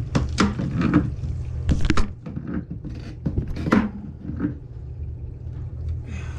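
Short clicks, knocks and rustles of hands handling a PVC drain pipe fitting, most of them in the first half, over a steady low hum.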